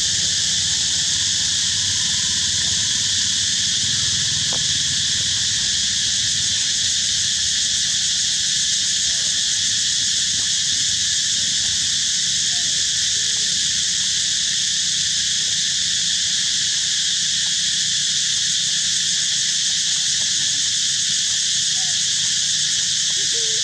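A dense chorus of insects drones steadily and unbroken, with a few faint short calls near the end.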